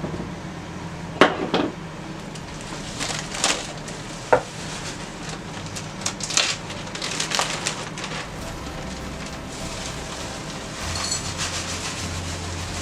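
Irregular kitchen clatter while brownie ingredients are prepared by hand: a handful of sharp knocks and clacks spaced a second or two apart over a rustling, scraping background. Near the end it turns into a denser, steady rustle.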